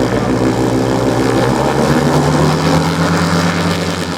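Two-stroke boxer engine with reduction gearbox of a 130 kg giant model airplane running on the ground and turning its propeller, warming up. About a second and a half in, the revs step up and hold higher.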